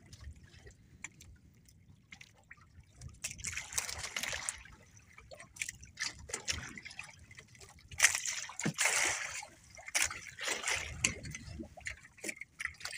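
Sea water lapping and sloshing against the hull of a small outrigger boat in repeated splashy bursts, with a sharp slap about eight seconds in.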